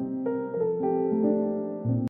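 Background music: a light piano melody of held notes that change every fraction of a second.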